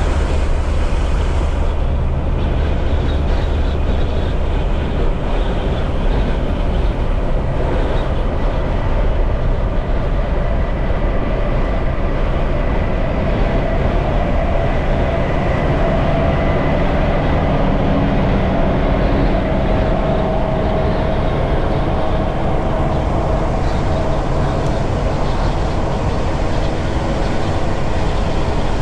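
Semi-truck driving on the highway, a loud, steady rumble of engine and road noise.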